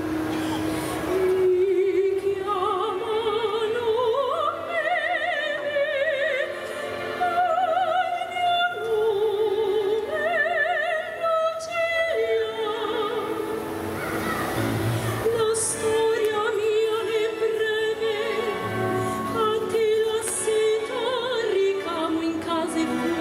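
A female opera singer singing an aria with wide vibrato over a full symphony orchestra, her line climbing in the first few seconds and then holding long notes.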